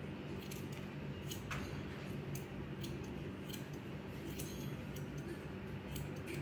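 Hair-cutting scissors snipping through locks of wet hair: about ten short, crisp snips at irregular intervals, over a steady low hum.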